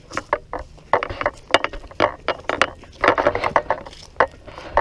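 Footsteps crunching through dry leaves and pine needles: irregular clusters of crackles, a few each second.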